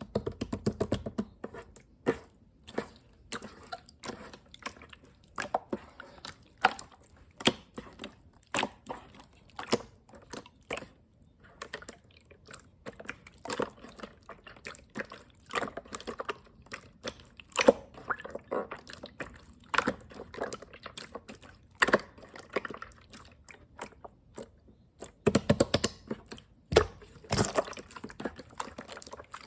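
Clear slime being squished and stretched by hand, giving a run of irregular wet pops and clicks, with a denser cluster near the end.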